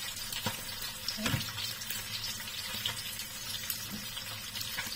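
Salmon belly pieces frying in their own rendered fat in a pan, a steady sizzling hiss with small crackles, and a couple of light spatula knocks on the pan in the first second and a half.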